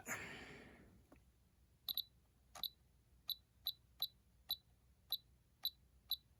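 Spektrum DX6i radio transmitter beeping as its newly replaced roller switch is scrolled: about ten short, high beeps at uneven intervals, starting about two seconds in, one for each step through the menu.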